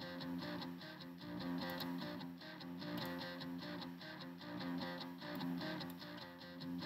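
Background music with strummed guitar and a steady rhythm.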